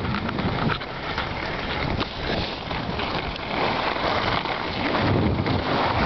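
Skis sliding and scraping over hard-packed groomed snow, a steady hiss full of short scratchy ticks, with wind rumbling on the microphone.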